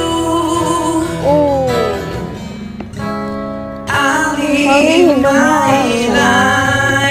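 Music: acoustic guitar with a voice singing over it.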